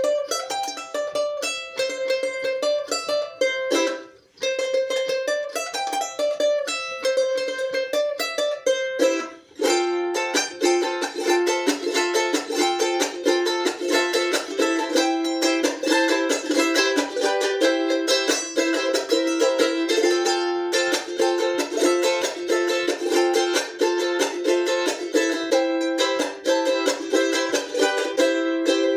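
Charango music: a picked melody with a short break about four seconds in, then from about ten seconds in denser, faster playing.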